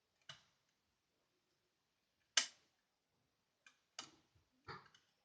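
Sharp metallic clicks of a lever-lock pick and pre-lifter working inside a 5-lever ERA Fortress deadlock, as the levers are lifted and set one by one. A single click, a louder one about two and a half seconds in, then a quick cluster of smaller clicks near the end.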